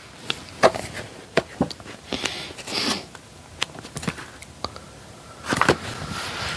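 Paperback books being handled and swapped on a cutting mat: scattered light taps, clicks and paper rustles, with a louder knock or two near the end.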